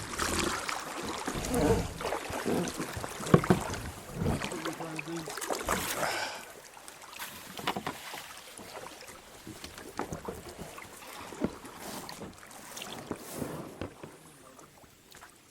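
Kayak paddling through a shallow, rocky creek: paddle strokes splashing, with knocks and scrapes against the boat. It is busy and louder for about the first six seconds, then settles into sparser, quieter strokes.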